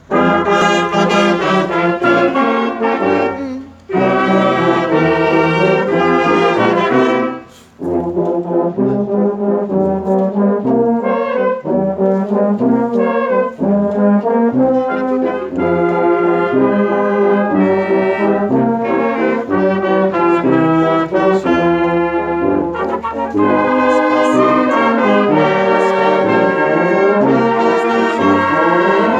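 Brass band playing a hymn tune, trombones and trumpets together in sustained chords, with two short breaks between phrases a few seconds apart near the start.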